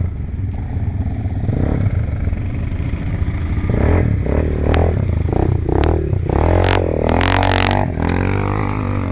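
Quad bike (ATV) engines running with a steady low drone; from about the middle one revs up and down. Clattering knocks come through at times.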